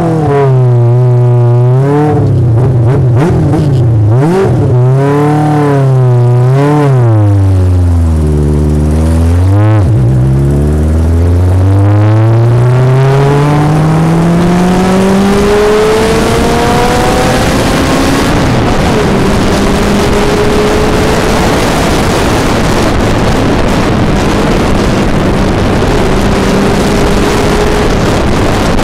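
A four-cylinder Honda 750 cc motorcycle engine fitted in a golf cart, revving up and down several times. It then pulls through one long rise in pitch. About two-thirds in, the note drops and holds steady while a loud rush of wind noise on the microphone builds up.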